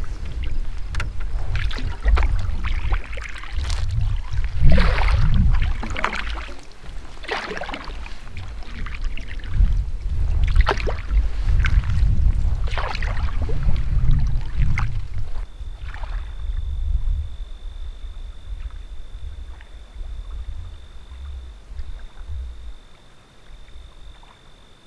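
Canoe paddle strokes: irregular splashes of the paddle dipping and pulling through the water about every one to two seconds, over a low rumble. The strokes stop about two thirds of the way through, leaving a fainter rumble.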